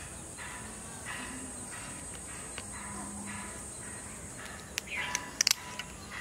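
Outdoor ambience of a steady high insect drone with birds calling, and a few sharp clicks near the end as spring pruning shears snip a dragon fruit from its cactus stem.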